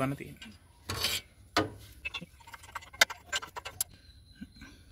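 Scattered small metallic clicks and clinks, with a short scrape about a second in and a quick run of clicks near three seconds in, from a spanner and nuts being worked at the exhaust-pipe joint of a two-stroke auto-rickshaw engine while the silencer is being unbolted.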